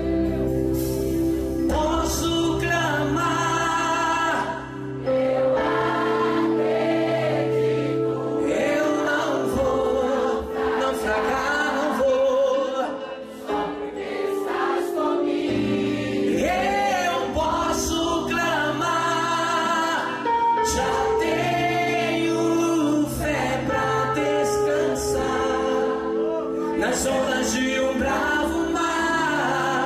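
Church congregation singing a Portuguese gospel worship song together as a crowd, over the band's sustained chords and bass notes.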